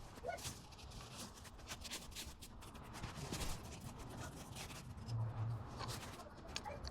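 Faint rubbing and scratching with scattered light clicks and ticks, as of hand work on an object.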